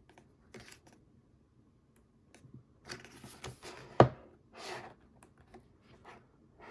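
Hands handling an album's photobook and packaging: scattered paper and plastic rustles and light taps, with one sharp knock about four seconds in.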